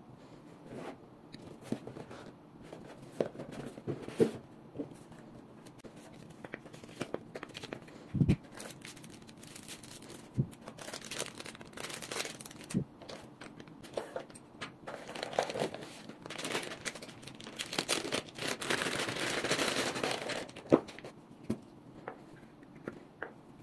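Clear plastic packaging bags crinkling and rustling as they are handled and opened, with scattered clicks and knocks of small items and the box being set down on a table. The longest, loudest spell of crinkling comes about three-quarters of the way through.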